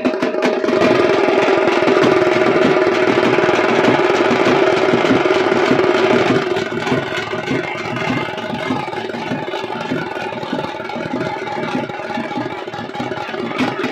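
Loud festival procession music for the Karaga dance: a wind instrument holding steady notes over fast, dense drumming. The level drops somewhat about six seconds in.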